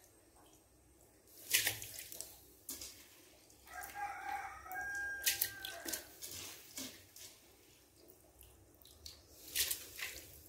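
Water in a cooking pot of hot water, with a few small drips and splashes. About four seconds in, a drawn-out wavering call sounds in the background for roughly two seconds.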